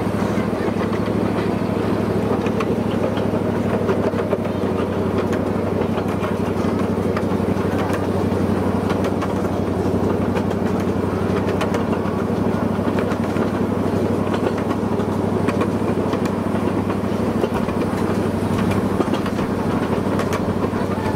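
Miniature train's locomotive engine running steadily, with faint scattered clicks.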